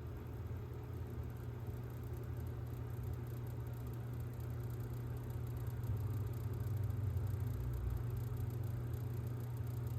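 Corsair RM1000e computer power supply making an abnormal noise: a steady low hum over a faint hiss, growing slightly louder about six seconds in.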